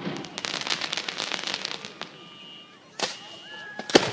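Aerial fireworks: a dense crackling of rapid pops for about two seconds, then a sharp bang about three seconds in and a louder one near the end.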